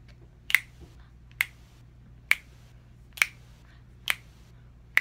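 Two people snapping their fingers together in a slow, steady beat, about one snap a second, the snaps landing nearly but not quite at once.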